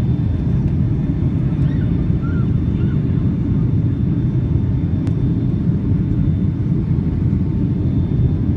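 Steady low rumble of a Boeing 757-200's engines and rushing air, heard inside the cabin from a window seat on final approach with the flaps extended. A faint click about five seconds in.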